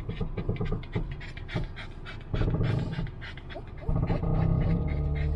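Dog panting rapidly and rhythmically inside a moving car, several breaths a second, over the low hum of the car.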